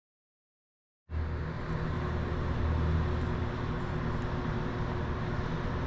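Silence, then about a second in a steady mechanical hum with a low drone starts abruptly and holds even.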